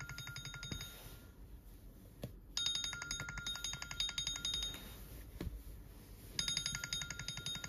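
A smartphone ringing: a bright electronic tone pulsing rapidly, in bursts about two seconds long with short pauses between them. There are a couple of soft knocks as the phone is handled.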